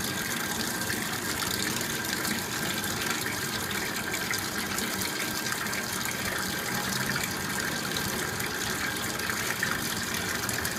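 Steady rush of water running, like a tap left on.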